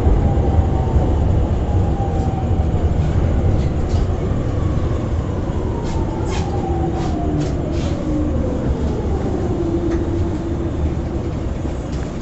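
E231-500 series Yamanote Line electric train slowing down. Its traction-motor whine falls steadily in pitch over a heavy rumble of wheels on rail, heard from inside the car. A few short clicks come around the middle.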